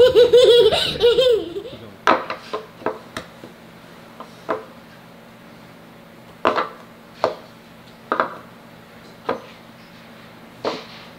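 Laughter for the first second or so, then a series of about ten short, sharp knocks at irregular intervals. The knocks are tic tac toe pieces being set down one by one on a wooden board during a game.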